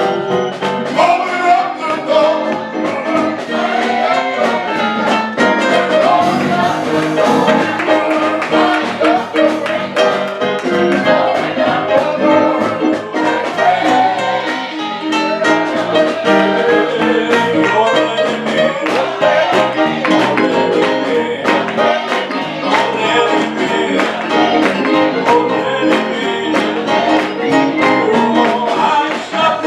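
Gospel music: singing over instruments with a steady drum beat.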